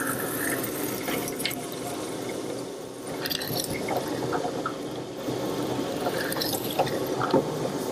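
Drill press with a hollow-chisel mortising attachment running, its square chisel and bit plunging into walnut to cut a mortise, with scattered clicks as chips are cleared.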